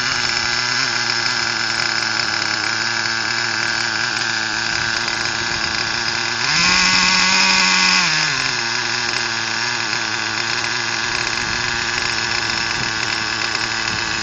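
Glow-plug nitro engine of a custom-built RC truck idling steadily, with one brief rev about six and a half seconds in, held for under two seconds before it drops back to idle.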